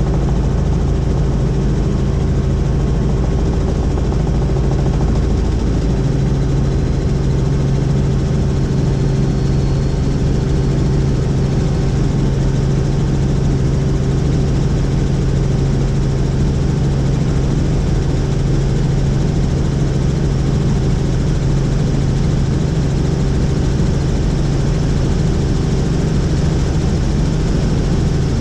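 Helicopter in flight, its engine and rotor running with a loud, steady drone. The low hum grows a little stronger about six seconds in.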